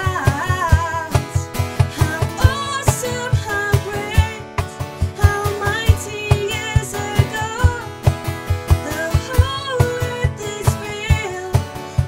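Acoustic guitar strummed in a steady rhythm under a woman singing a contemporary worship song, her held notes wavering with vibrato.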